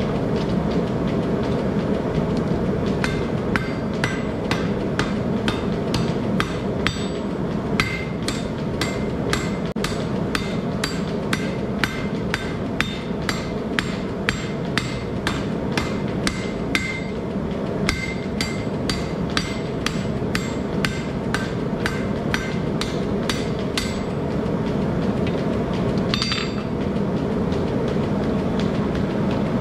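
Blacksmith's hand hammer striking a hot square steel bar on an anvil, about two ringing blows a second, starting a few seconds in and stopping a few seconds before the end, with one last blow after a short pause. Under it runs the steady roar of a propane forge burner.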